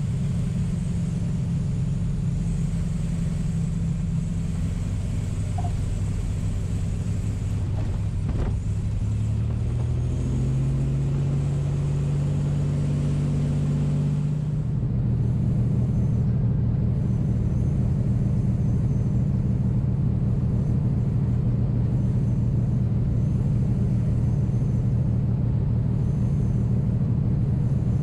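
1979 Mooney M20K's turbocharged six-cylinder piston engine and propeller running, heard from inside the cabin. The engine note rises about ten seconds in, and about fifteen seconds in the engine comes up louder to a steady, higher-power drone, typical of power being applied for the takeoff roll.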